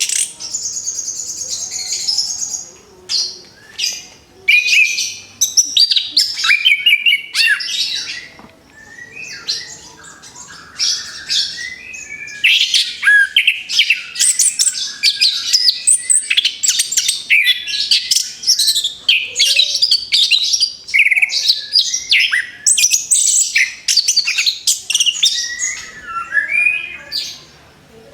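Orange-headed thrush (anis kembang) singing a long, rapid, varied song of whistles, trills and chirps, easing off for a few seconds about a third of the way in before resuming in full.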